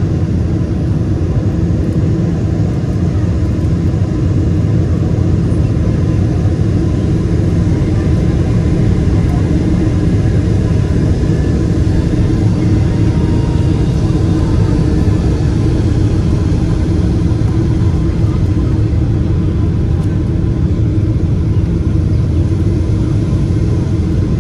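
Steady low rumble of a Boeing 777 airliner heard from inside the passenger cabin: engine and airflow noise, even throughout with no change in pitch.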